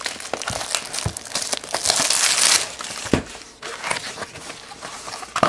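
Cellophane shrink-wrap crinkling and tearing as it is pulled off a cardboard trading-card box, with a longer ripping hiss about two seconds in. A few light knocks follow as the box is handled and its lid opened onto the foil card packs.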